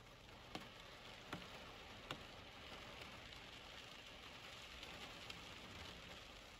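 Rain falling, a faint steady hiss, with four sharp taps of single heavy drops landing close by.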